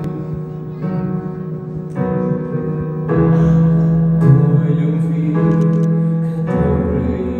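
Slow pop ballad played from a backing track: sustained keyboard chords that change about once a second.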